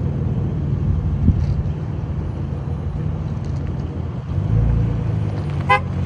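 Flood-damaged Nissan GT-R driving, its engine running with a steady low hum; the rumble swells about four and a half seconds in. A short pitched chirp sounds near the end.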